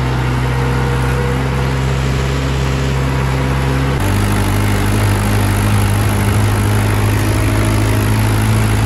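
A motor vehicle's engine running steadily with a wide rushing noise over it. Its low note steps slightly lower about four seconds in.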